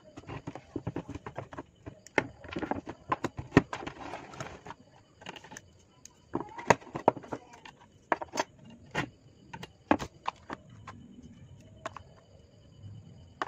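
Thin steel E and I transformer core laminations clicking and clinking against each other and the workbench as they are handled, in irregular sharp clicks, some in quick clusters.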